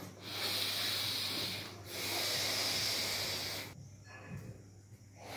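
Heavy, hissing breaths: two long breaths, then a quieter stretch near the end.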